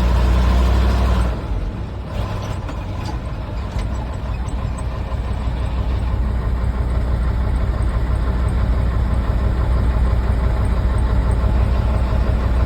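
Heavy diesel engine running hard, then dropping back sharply about a second in to a lower, steady running note.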